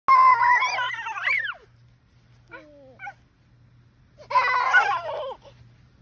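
Toddlers squealing in high-pitched, wavering shrieks: two bursts a few seconds apart, with a short, quieter voice sliding down in pitch between them.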